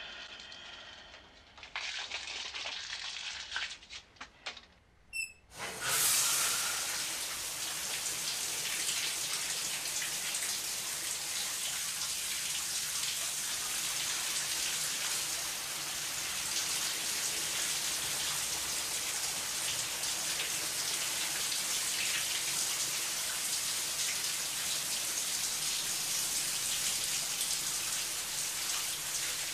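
A few seconds of short rustling and knocks, the shower curtain swinging, then about five seconds in a shower is turned on and water sprays steadily from an overhead rain-style showerhead into the tub.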